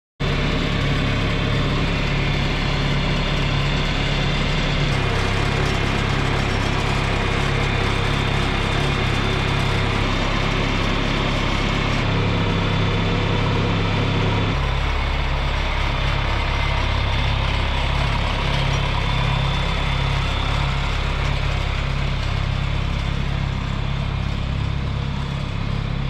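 Farm tractor engine running steadily while towing a portable grain auger, its note stepping up or down a few times.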